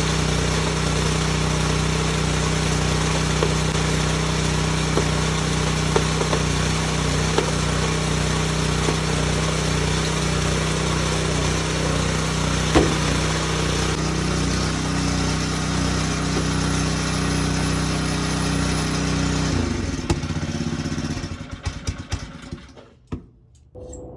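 K&M rock crusher running steadily under power while crushing gold ore, with scattered sharp ticks of rock being broken. About 20 seconds in, the machine is shut off and winds down, followed by a few knocks.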